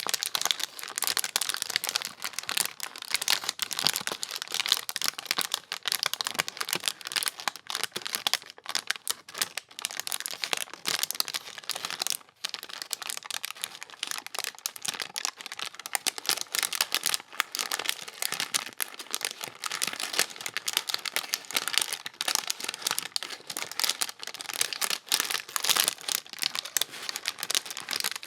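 Parchment paper being crumpled by hand: a continuous run of dense, crisp crinkles and crackles, with a momentary pause about twelve seconds in.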